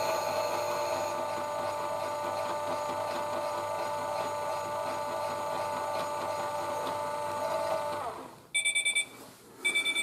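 Toy Miele W1 washing machine spinning its drum: the small motor runs with a steady whine, then winds down with a falling pitch about eight seconds in. Two short bursts of quick high beeps follow, the machine signalling the end of the spin.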